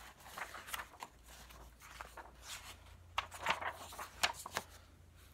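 Paper pages of a picture book being turned by hand: a handful of short, soft rustles and page flaps.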